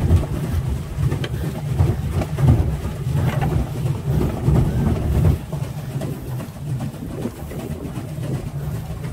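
Low, uneven rumble of wind buffeting the phone's microphone on an open pedal boat, easing a little about five seconds in.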